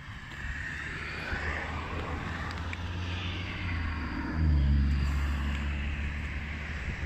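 Kawasaki Z400's 399 cc parallel-twin engine idling steadily, growing louder about four seconds in.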